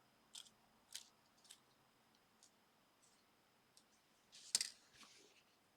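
Faint clicks and taps of small plastic phone parts being handled: a few light ticks in the first second and a half, then a louder click with a short rustle about four and a half seconds in.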